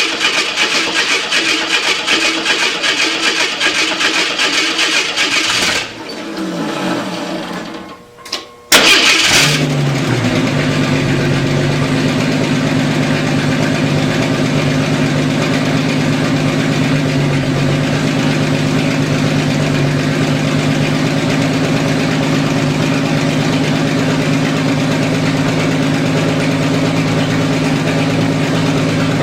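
AMC 258 (4.2 L) inline-six engine with a straight-piped exhaust turning over for about six seconds, then dying away with falling pitch. About nine seconds in it catches with a loud burst and settles into a steady idle.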